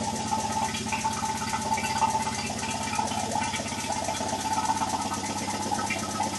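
Vacuum pump running steadily with a fast, even pulse, drawing the air out of the vacuum bag over a carbon fibre and epoxy lay-up.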